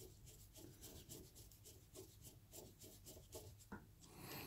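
Faint scratchy clicks of a screwdriver turning out a small screw on an air compressor's pressure switch casing, several a second.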